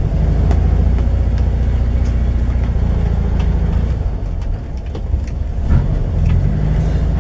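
VW T2 bay-window Kombi's air-cooled flat-four engine running as the van drives slowly, heard from inside the cab. The engine note dips about four and a half seconds in and picks up in pitch near the end, with a few faint clicks along the way.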